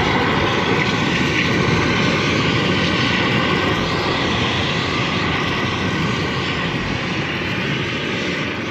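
High-pressure drain jetter running steadily, its engine and pump under load while jetting water through a silted pipe.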